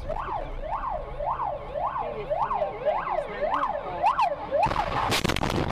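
Ambulance siren sweeping up and down, about two sweeps a second. About four and a half seconds in it gives way to a sudden loud rush of noise with a few sharp cracks.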